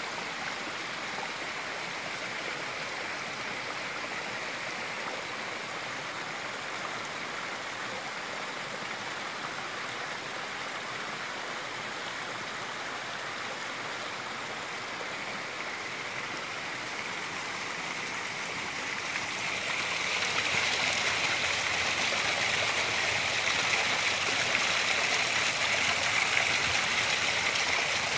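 Muddy rainwater runoff rushing down over boulders in small cascades, a steady rushing that grows louder about two-thirds of the way through.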